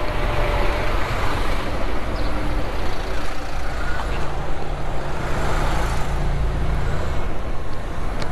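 Road traffic noise heard from a small electric motorbike filtering slowly between queued vehicles: a steady low rumble of idling engines close alongside, including a coach, mixed with wind and road noise.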